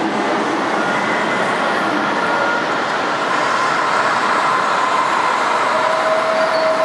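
Steady, even background noise of a large museum exhibit hall around a model railroad layout, with a few faint steady tones over the noise and no single sound standing out.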